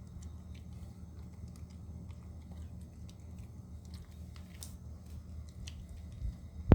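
Chihuahua eating, faint scattered ticks of chewing over a steady low hum, with one sharp, loud click at the very end.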